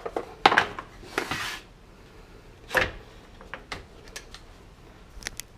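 Metal clatter of tools and dryer parts being handled: sharp clicks and knocks, a brief rustle about a second in and a heavier knock near three seconds, then a few light ticks.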